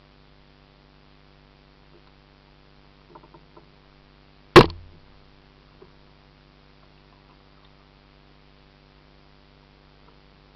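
One hard, sharp knock on the kayak close to its mounted camera, with a few light taps just before it, over the camera's faint steady hum.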